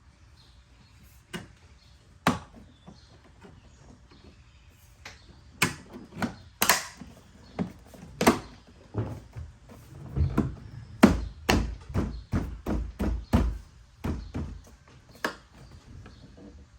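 A plastic trim cover on a Tesla Model X door being pressed and tapped into place, its clips snapping in: sharp clicks and knocks, scattered at first, then a quick run of heavier thumps about ten seconds in, with one more knock near the end.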